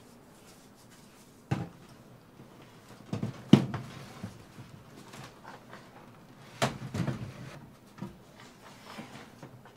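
Scattered knocks and bumps of wood and objects being handled and set down: a sharp knock about one and a half seconds in, a cluster with the loudest thump around three and a half seconds, another cluster near seven seconds and a lighter one just after.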